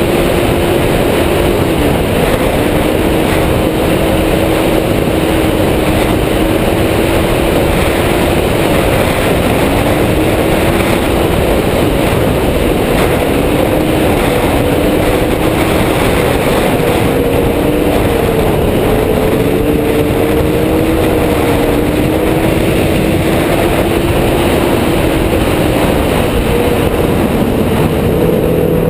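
Yamaha Apex snowmobile's 1000 cc four-stroke engine running at trail speed, its pitch dipping and climbing back several times as the throttle is eased and opened again. Heavy wind rush on the microphone runs under it.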